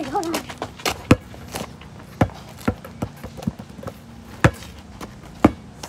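Basketball dribbled on asphalt pavement close to the microphone: about ten sharp bounces at an uneven pace.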